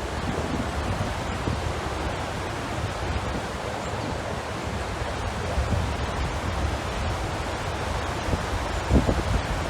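Steady rush of rough, storm-stirred water with wind, and wind buffeting the microphone; a stronger gust comes near the end.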